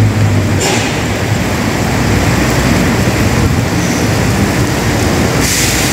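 Intercity coach bus's diesel engine fading as it pulls away along a wet road, giving way to a steady hiss of heavy rain and tyres on water. Two brief louder hisses come about half a second in and near the end.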